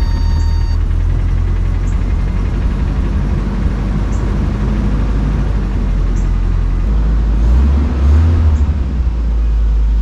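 1988 Toyota Van's four-cylinder engine idling steadily, running again on a new coil pack after the old one had been arcing. It revs up and back down briefly about eight seconds in.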